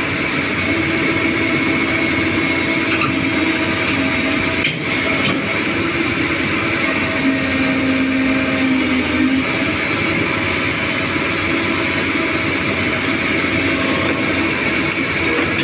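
Doosan 225 excavator's diesel engine and hydraulics running steadily under load, with a whine that shifts between a lower and a higher pitch every few seconds as the machine works.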